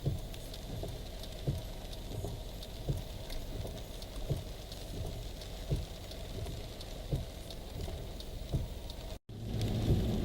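Steady rain with vehicle noise and a low, regular thump about every second and a half. The sound cuts out briefly about nine seconds in, then comes back louder.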